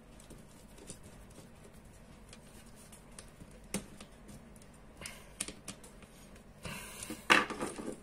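Light clicks, taps and rustles of hands handling insulated wire and a screwdriver at a small circuit breaker and terminal block. There is one sharp click a little before halfway and a louder burst of rustling and knocking near the end.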